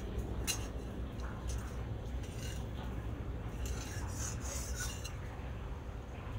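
Metal spatula scraping and clinking a few times against an empty kadhai (wok) as it heats, over a steady low rumble.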